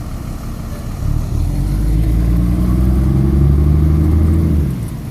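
Garbage truck's engine revved up about a second in and held at a steady higher speed for several seconds, then dropping back to a low rumble near the end.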